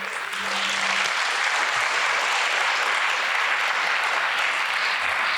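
Concert audience applauding steadily, a dense wash of many people clapping that swells over the first second and then holds.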